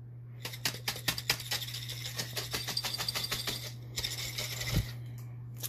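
Glass canning jar of partly colonized whole-oat grain spawn being shaken, the loose oat kernels rattling against the glass in a quick run of clicks for about three and a half seconds, followed by a dull thump near the end. The shaking breaks up the clumps of mycelium-bound grain so the spawn colonizes evenly.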